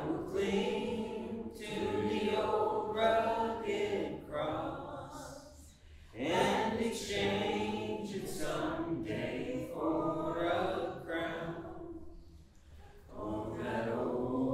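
Congregation and worship leader singing a slow hymn together, in phrases of long held notes with short breaks about five and twelve seconds in.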